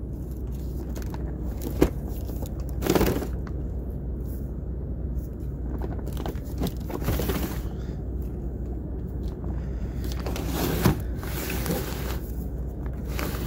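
A cardboard firework cake box being handled and turned over, with rustling, scraping and a couple of sharp knocks, over a steady low hum.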